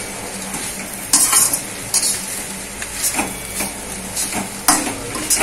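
Perforated steel spatula stirring and scraping a sizzling mix of flaked shark, grated coconut and onion in a steel kadai, irregular scrapes about once a second over a steady sizzle. The mix is being sautéed to drive off its moisture.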